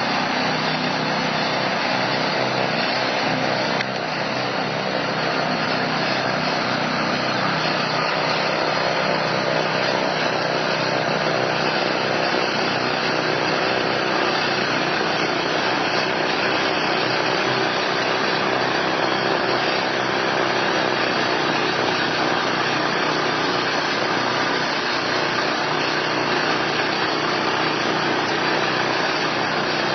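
A 6.5 hp two-stage gasoline snow blower running steadily under load, its small engine droning while the auger and impeller chew through snow and throw it out the chute.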